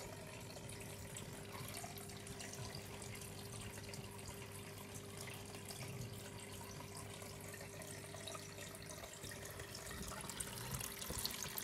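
Aquarium filter running in a terrapin tank: its outflow trickling and splashing steadily into the water, faint, with a low steady hum underneath.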